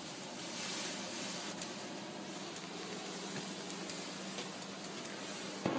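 Gas weed-wand burner of a homemade rat smoker hissing steadily as it heats the coil that turns the fed oil into thick smoke, with a few faint ticks and a sharp knock near the end.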